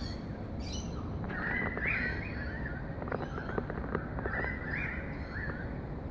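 A bird calling twice, a short warbling call repeated about three seconds apart, over steady outdoor background noise.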